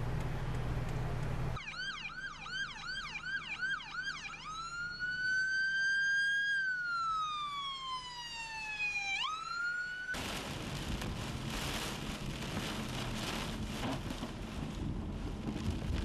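Emergency vehicle's electronic siren, first a rapid yelp, then a slow wail that rises and falls and sweeps up again. About ten seconds in it cuts off abruptly to a dense rushing noise of heavy wind-driven rain.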